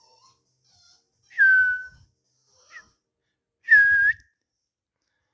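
A dog howling in two short, high-pitched calls about two and a half seconds apart, the first sliding slightly down in pitch, the second held level.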